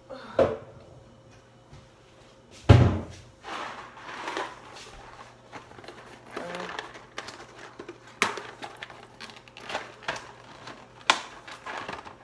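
Kitchen handling sounds: a knock about half a second in and a louder thud near three seconds, like a cupboard or pot being knocked. Then come scattered clicks and rustling as a cardboard pasta box is handled, over a low steady hum.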